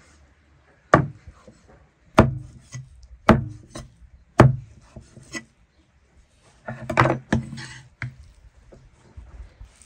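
A blade chopping on wood: four single blows about a second apart, then a quicker cluster of knocks with some rubbing about seven seconds in.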